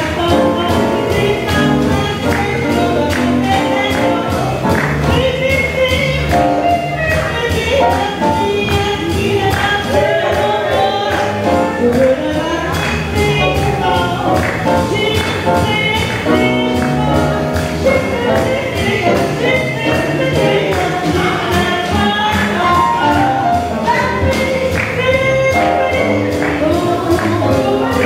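Live jazz quintet of trumpet, saxophone, piano, bass and drums accompanying a group of vocalists singing together, with the drums keeping a steady beat throughout.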